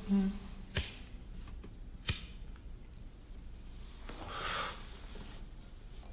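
Two sharp clicks about a second and a half apart, then a brief soft rush of noise, over a faint low background hum.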